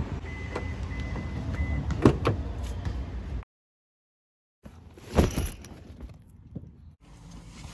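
Outdoor noise with a couple of knocks, cut by about a second of dead silence. Then, inside a car, a loud thump about five seconds in, followed by backpack rustling and handling as a child climbs into the back seat.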